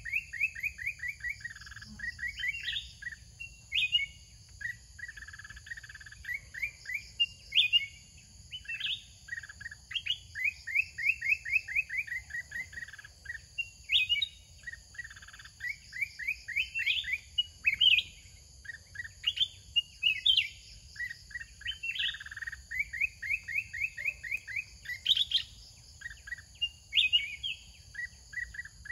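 A caged decoy songbird singing over and over, each phrase a fast run of quick notes rising in pitch, repeated every second or two. A steady high-pitched hum runs behind it.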